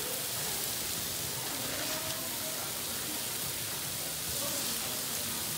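Ribeye kabobs sizzling on a hot gas grill: a steady, even hiss.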